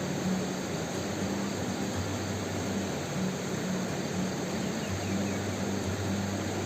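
Steady rushing noise with a faint low hum that comes and goes.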